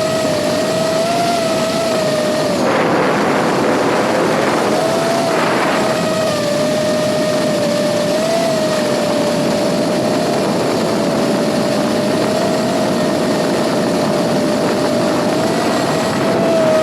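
FPV drone's electric motors and propellers whining at a nearly steady pitch, dipping lower briefly about three seconds in. Two short rushes of wind noise come around three and five seconds in.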